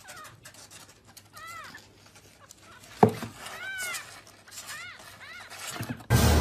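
Kitten mewing: about four short high-pitched mews that rise and fall in pitch. A sharp knock comes about 3 s in, and a loud rush of noise starts just before the end.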